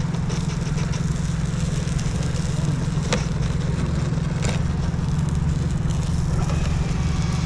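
A 6S DC10 FPV chase quadcopter's motors and propellers humming steadily, heard from its onboard camera, with a couple of faint clicks partway through.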